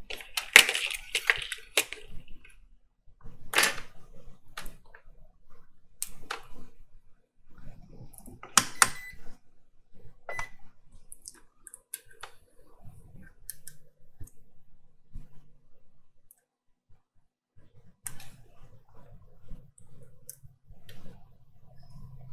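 Scattered clicks and light knocks of multimeter test probes and their leads being picked up and touched to a laptop motherboard on a silicone repair mat, with two brief beeps near the middle.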